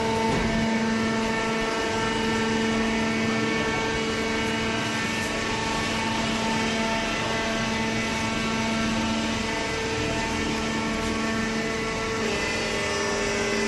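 Hydraulic baler running: a steady machine hum from its pump and motor, shifting slightly in pitch near the end.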